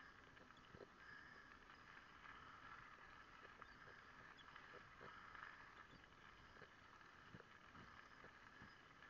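Near silence: a faint steady hiss with scattered soft knocks.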